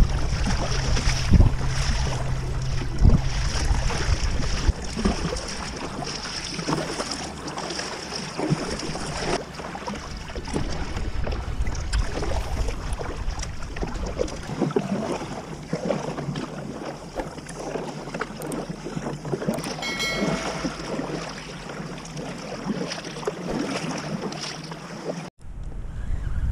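Water splashing and lapping along a plastic fishing kayak's hull as it is paddled, with wind buffeting the microphone.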